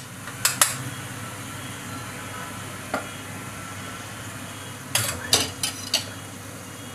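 Tomato and spice masala sizzling in oil in a pan as the oil begins to separate from it. A spoon stirs and scrapes against the pan: a couple of strokes about half a second in, one near three seconds, and a quick cluster around five to six seconds in.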